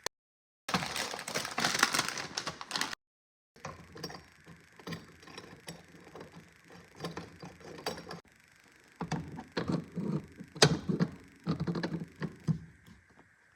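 Handling noise from installation work: knocks, clicks and rattling of parts and tools in quick irregular runs, with two abrupt cut-outs to silence.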